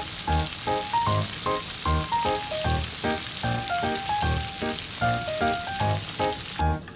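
Meatballs frying in a shallow layer of hot oil in a frying pan: a steady, dense sizzle that cuts off just before the end. Background music with a light melody and a regular beat plays over it.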